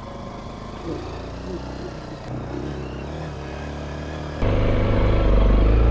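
Honda XR190L motorcycle's single-cylinder engine running steadily while riding, becoming abruptly much louder about four and a half seconds in.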